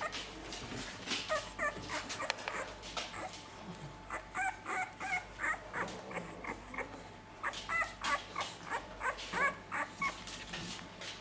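Puppies about 17 days old whimpering and yipping in short, high squeaks, several a second, coming in bursts with short pauses between.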